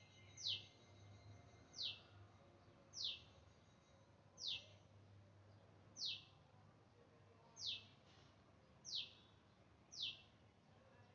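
A bird repeating one short, high call that slides downward in pitch, about every second and a half, eight times, over a faint steady background hum.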